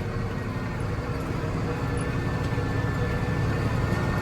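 Tractor engine running steadily, gradually growing louder.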